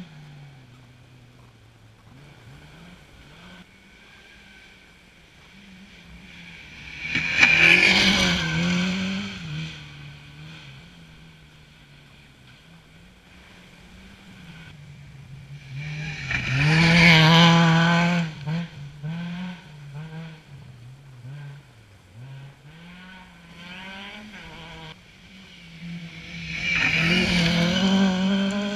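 Rally cars passing one after another at speed on a gravel forest stage, with three loud passes about nine seconds apart. Each engine revs hard and changes pitch as it goes by, with the hiss of tyres throwing gravel. Between the passes, engine sound carries from further along the stage.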